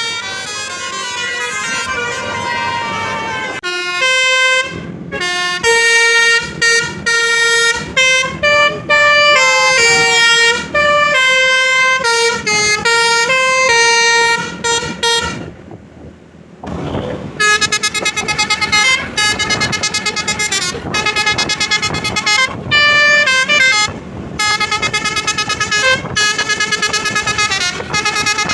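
Basuri telolet bus horn playing a long tune from its roof-mounted trumpets: a quick run of loud, clear notes stepping up and down in pitch, with a short pause about halfway through before the tune picks up again.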